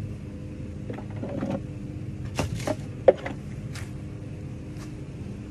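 Honey bees buzzing in a steady hum, with several short knocks and rustles from the bees being handled into a wooden hive box. The sharpest knock comes about three seconds in.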